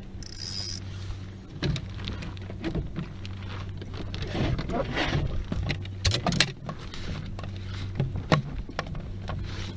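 A freshly caught horse mackerel flapping and knocking against a small boat's floorboards and a plastic cooler box, with tackle rattling: a run of irregular taps and thumps over a steady low hum.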